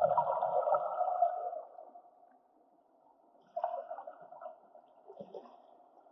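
Muffled underwater water noise heard through a camera's waterproof housing: a gurgling swirl that lasts about a second and a half, then a second, briefer swirl about three and a half seconds in.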